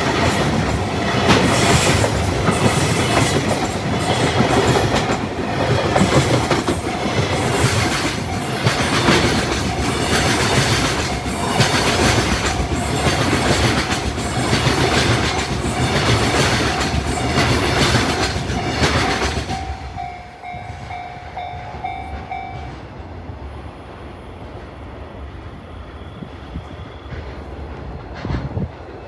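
Freight train hauled by an EF210 electric locomotive rolling past at a level crossing: a loud steady rumble with a regular clickety-clack of wagon wheels over the rails, dropping away suddenly about 20 seconds in as the last wagon clears. A level-crossing warning bell's steady tone carries on a couple of seconds longer, then stops.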